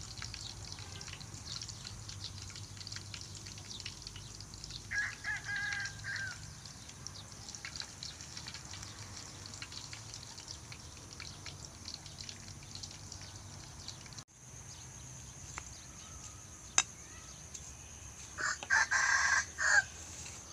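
A rooster crows twice: a short crow about five seconds in and a louder, longer one near the end, over a steady high hiss.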